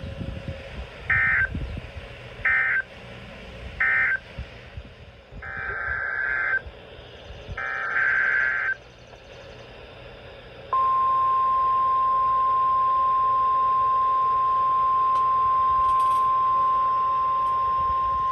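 Emergency Alert System digital data bursts from NOAA Weather Radio: three short screeching bursts about a second and a half apart, then two longer ones, marking the end of one warning and the header of the next. About ten seconds in, the weather radio's steady, piercing warning alarm tone comes on and holds.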